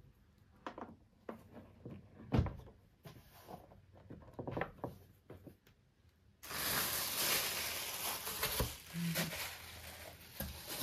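Light clicks and knocks as a pressure cooker's power cord and plug are handled and laid on a table. About six seconds in, a steady rustling hiss starts abruptly and carries on.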